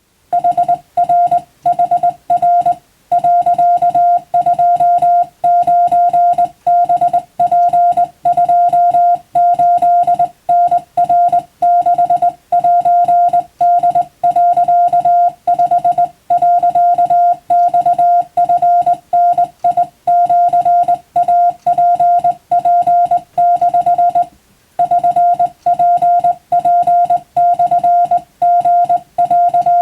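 Japanese Wabun Morse code: a steady mid-pitched beep keyed on and off in dots and dashes at a brisk sending speed, with a longer break about 24 seconds in.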